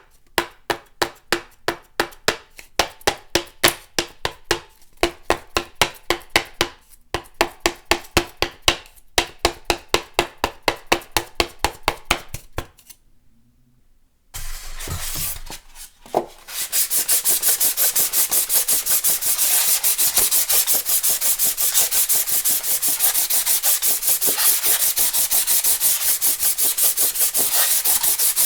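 Pink foam board being rubbed, giving a run of sharp squeaks at roughly three a second with brief pauses between runs. After a short silence about halfway through, Styrofoam is rubbed hard and fast, a dense, continuous squeaking and scraping.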